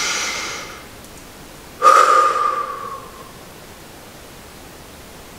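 A woman taking a deep breath: an audible breath in at the start, then a loud breath out about two seconds in that fades away over a little more than a second.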